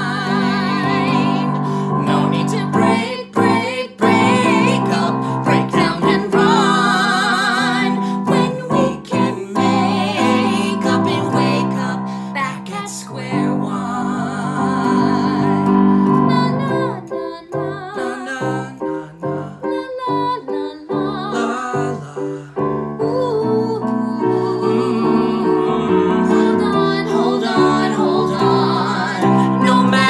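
A man and a woman singing a duet with vibrato, accompanied by a keyboard piano that the man plays.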